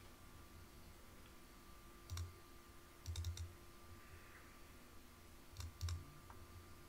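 Computer mouse button clicks: a single click about two seconds in, a quick cluster of clicks around three seconds, and two more about a second before the end.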